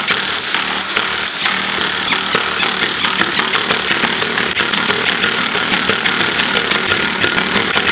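Cordless impact driver hammering continuously, a rapid rattle of impacts, as it runs down the bolts of a beadlock ring. The bolts are being snugged up around the pattern before final torquing.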